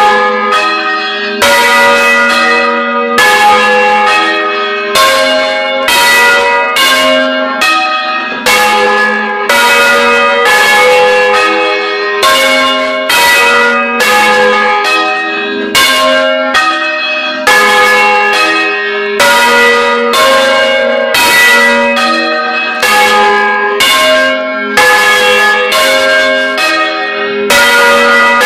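Several church bells swung by hand-pulled ropes, clanging in a continuous, loud peal: strikes come roughly one or two a second, each ringing on into the next. Heard from right beside the bells in the belfry.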